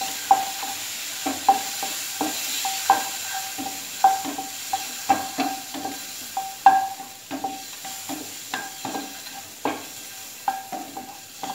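A wooden spatula stirs and knocks around a metal frying pan as scored boiled eggs are rolled through hot oil with chilli and turmeric powder to coat them. The knocks are irregular, one or two a second, and each leaves the pan briefly ringing. A faint sizzle of frying oil runs underneath.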